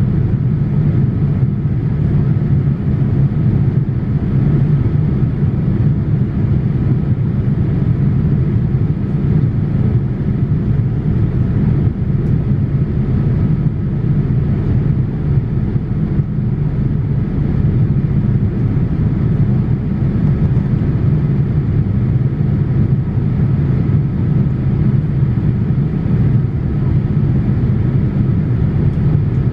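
Steady low cabin rumble of a Boeing 787-8's Rolls-Royce Trent 1000 engines and rushing airflow, heard from a window seat beside the wing as the airliner climbs out after takeoff.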